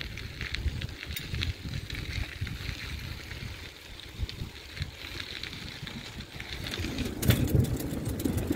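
Bicycle tyres rolling over a gravel trail, with a low wind rumble on the microphone. About seven seconds in, the tyres roll onto a wooden boardwalk and clatter quickly over the gaps between the planks.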